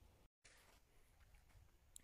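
Near silence: faint low background rumble and hiss. About a third of a second in, the sound drops out completely for an instant, where two recordings are spliced together.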